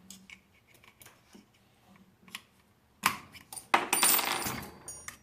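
Rifle parts being handled: scattered light clicks, then a sharp metallic clatter about three seconds in and a longer, louder rattle with a faint metal ring near the end.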